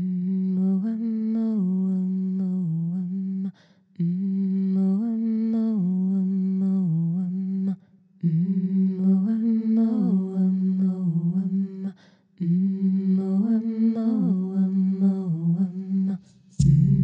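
A woman's voice humming a short wordless melodic phrase four times, each lasting a few seconds with a brief pause between. Near the end a sharp click comes, and lower held tones join the voice in layers.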